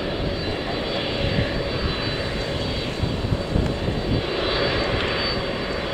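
Airliner's engines running loud and steady, a high whine over a deep rumble.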